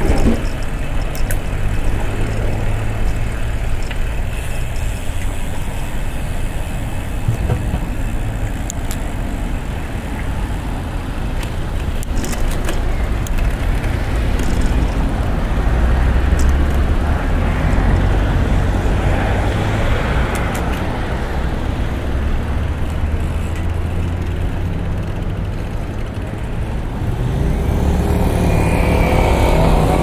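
Road traffic: a steady low rumble of passing motor vehicles, growing louder near the end.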